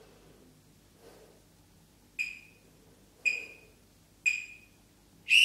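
Workout interval timer counting down: three short, high electronic beeps about a second apart, then a longer, louder beep starting near the end that marks the end of the hold.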